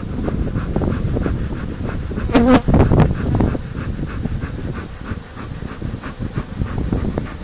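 Honeybees buzzing over the open frames of a hive, with a louder, pitched buzz about two and a half seconds in as a bee flies close.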